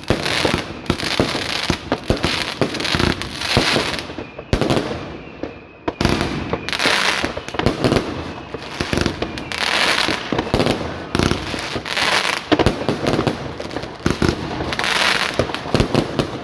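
A 120-shot compound firework cake firing shot after shot: rapid bursts and crackling, with a brief pause about a third of the way in before the firing resumes.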